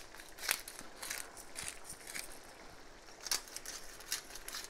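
Hand-twisted pepper mill grinding peppercorns: a string of short, crunching grinds, about two a second, with a brief pause midway.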